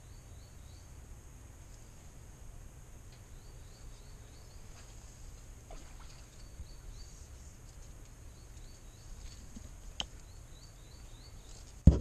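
Quiet forest ambience by water: a steady high insect hiss, short runs of faint high chirps, and a low rumble on the microphone. There is a sharp click about ten seconds in and a sudden loud thump near the end.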